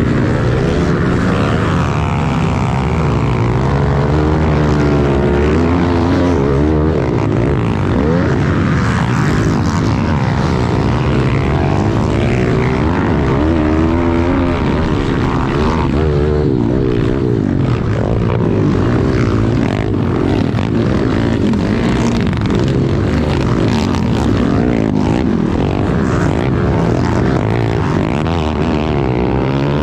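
Pit bike's small single-cylinder engine being ridden hard, its pitch rising and falling every second or two as the throttle is opened and closed.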